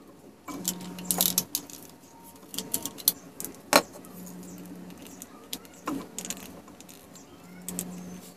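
Small plastic electrical parts (a power strip and a plug) handled on a wooden workbench: scattered clicks, taps and rattles, the sharpest about a second in, near the middle and about six seconds in, over a low hum that comes and goes.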